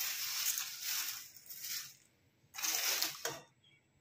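Slotted steel spatula stirring a kadai full of dry, crisp puffed rice (mamra) with broken papad and sev: a dry rustling crunch in two spells. The first lasts about two seconds, and a shorter one comes about two and a half seconds in.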